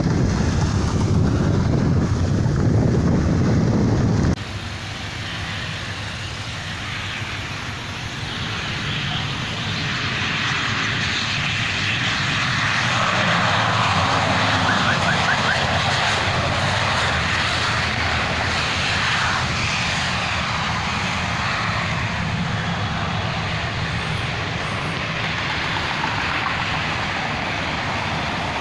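Wind buffeting the microphone for the first few seconds, cut off suddenly. Then the steady engine noise of an aircraft at the airport swells and fades, mixed with cars passing on the road.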